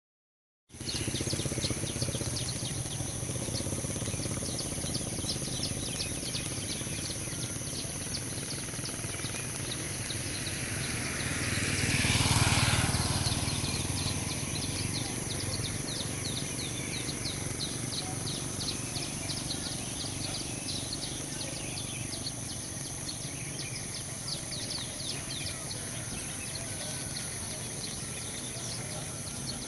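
Outdoor street ambience: a steady background hiss with rapid, high chirping through most of it. A little before halfway, a passing vehicle grows louder and then fades.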